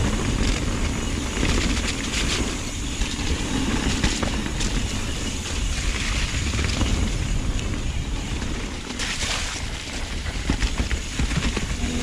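Trek Remedy mountain bike descending a wet, rough trail, picked up by a GoPro: a steady rush of wind and tyre noise with a low rumble, broken by frequent rattles and knocks from the bike over rocks and roots.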